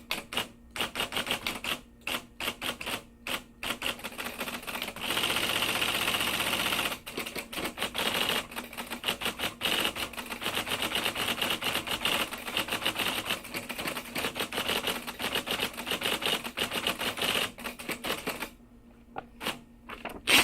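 Typewriter keys struck in fast, uneven runs with short pauses between bursts; near the end the typing thins to a few separate strikes and one loud final strike.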